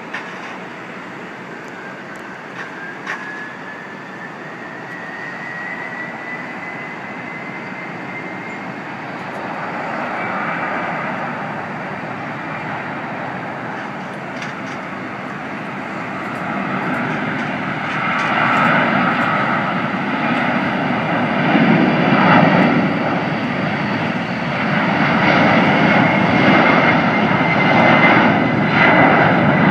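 Distant jet airliner engines: a thin whine rising in pitch over the first several seconds, then jet engine noise that grows much louder from about 18 seconds in and swells unevenly, as an airliner powers up for takeoff.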